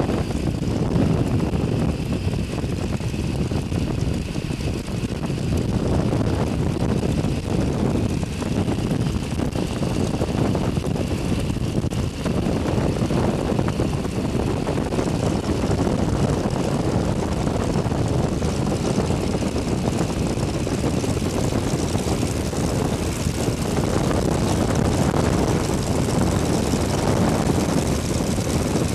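New Standard open-cockpit biplane's engine and propeller running steadily, with wind rushing past the open cockpit, through the approach and touchdown on the runway.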